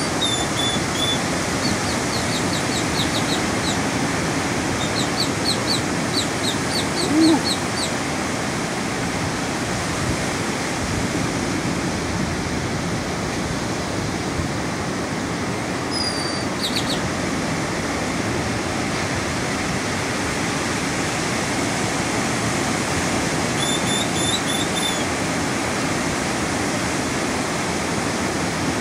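Ocean surf breaking and washing ashore in a steady, even rush. A small bird calls over it several times in quick runs of high, short chirps, and there is one brief louder low note about seven seconds in.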